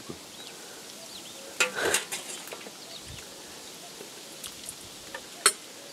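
Bowls and spoons clinking and knocking while fish soup is served: a couple of short knocks about a second and a half in, and one sharp clack near the end.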